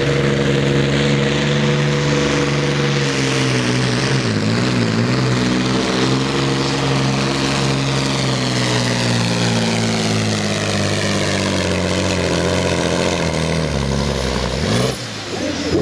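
Volvo FH16 pulling truck's diesel engine at full throttle, dragging a weight sled, with its pitch slowly sinking under the growing load. About fifteen seconds in the engine note drops sharply as the pull ends.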